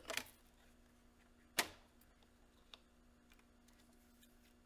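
Plastic tape reel being handled and fitted onto the spindle of an AKAI M9 reel-to-reel deck: a brief rustle, then one sharp click about a second and a half in, and a faint tick a second later.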